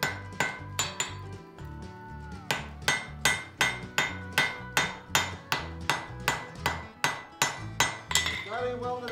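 Hand hammer striking a glowing steel billet on an anvil, about three blows a second in a steady rhythm, each blow ringing briefly.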